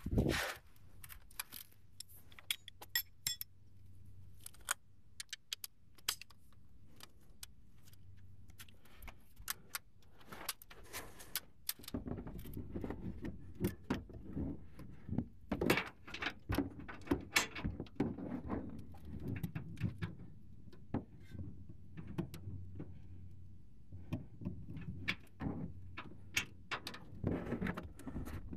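Hand tools clicking and clinking against metal as a torque wrench and a cut-down adjustable wrench are worked on a pickup's rear shock absorber upper mounting nut. The clicks come irregularly and grow busier about halfway through.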